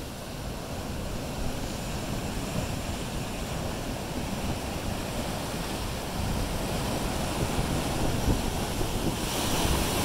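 Ocean surf breaking and washing around shoreline rocks, with wind buffeting the microphone. The wash grows louder near the end as a wave surges up toward the rocks.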